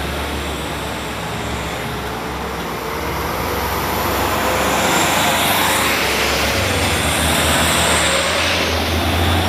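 Heavy diesel trucks driving up a steep hill road close by: a steady low engine drone with tyre and road noise that grows louder about halfway through and again near the end as a truck passes.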